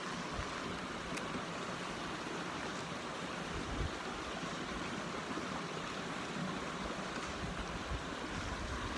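Steady rushing of a small creek's running water.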